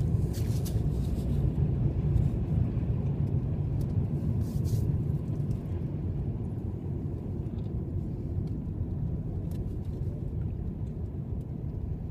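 Steady low road and engine rumble inside a car's cabin while driving, with a few brief rustles near the start and again about four and a half seconds in.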